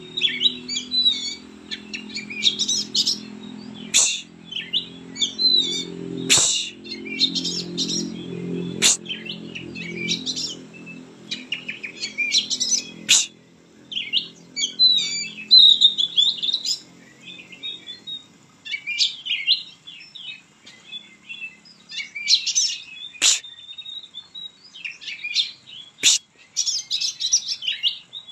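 Oriental magpie-robin (kacer) singing hard: fast, varied whistled and chattering phrases with brief pauses. A few sharp clicks come now and then, and a low hum runs underneath for about the first two-thirds before fading out.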